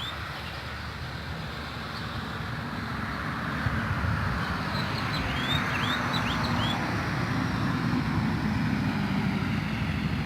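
A steady low rumble that grows louder a few seconds in, with a few quick bird chirps around the middle.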